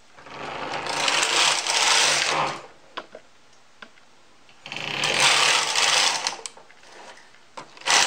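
Carriage of a Brother 260 bulky knitting machine pushed across the needle bed, knitting rows: two sweeps of about two seconds each with a couple of clicks between them, and a third sweep starting near the end.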